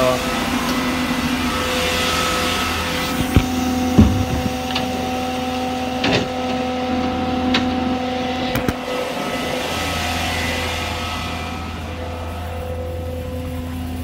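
Duramax diesel engine of a Chevrolet C5500 service truck running with its PTO engaged, a steady droning hum with a few sharp clicks and knocks in the middle. Part of the hum drops away about two thirds of the way through.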